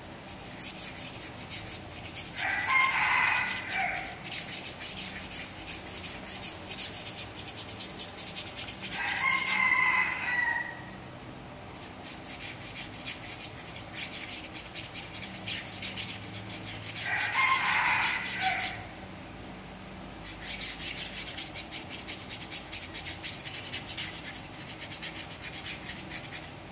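A paintbrush scrubbing white paint across corrugated cardboard, a fast scratchy rubbing. A rooster crows three times over it, each crow about a second and a half long and the loudest sound present.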